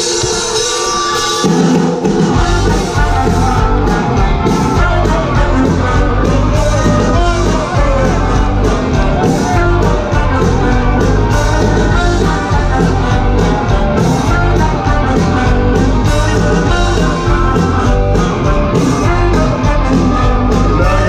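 Live rock band playing on stage through a loud PA, heard from the crowd: guitars over bass and drums. The full band comes in with a heavy, steady beat about two seconds in.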